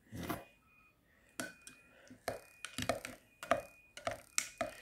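A spoon stirring dark chocolate into hot water in a cup, clinking against the side about two to three times a second, starting a little over a second in.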